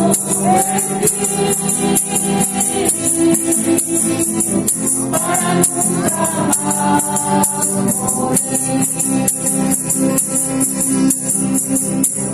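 A group of singers with strummed acoustic guitars performing a Spanish church hymn, with a shaker-like rattle keeping a quick, even beat of about four strokes a second.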